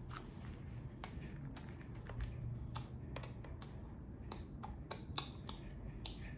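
Close-miked eating: a dozen or so sharp, irregular mouth clicks from chewing a bite of food.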